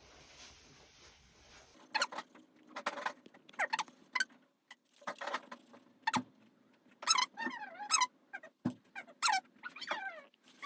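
Maltese dog giving a series of short, high-pitched squeaky whimpers and whines, some wavering in pitch, about one or two a second from about two seconds in.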